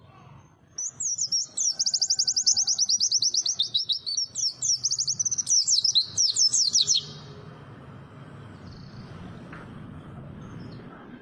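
A white-eye (pleci) singing one long, rapid, high-pitched twittering phrase of quickly repeated notes that starts about a second in and stops after about six seconds.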